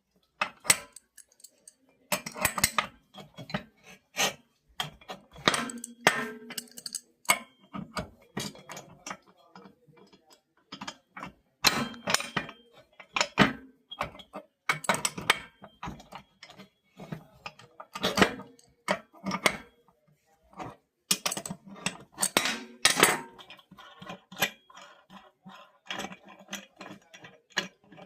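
Tools and metal parts clinking, tapping and knocking in irregular sharp strikes, some briefly ringing, while a Brastemp washing machine is worked on to replace its bearing.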